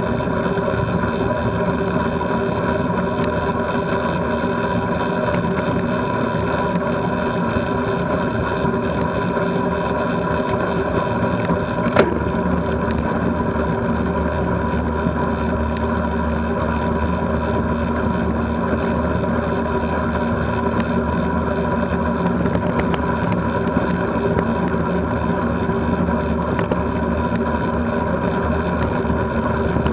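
Steady rolling noise of a road bike at about 20 mph: tyres on tarmac and wind over the camera microphone. A single sharp knock comes about twelve seconds in.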